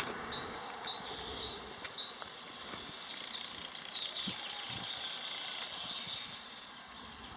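Small birds singing outdoors: a few short high chirps, then a fast warbling trill in the middle, over a steady background hiss.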